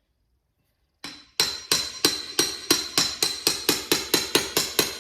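Rapid hammer blows with a metallic ring, about four a second, starting about a second in: a vacuum pump being pounded down into its bore to seat a new O-ring.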